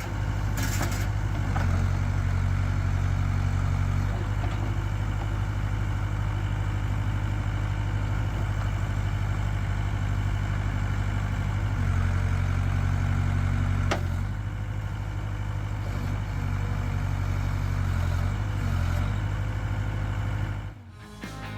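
1988 Case 580K loader backhoe's four-cylinder diesel engine running steadily, its note shifting a few times, with a sharp click about two-thirds of the way through. The engine sound cuts off abruptly near the end.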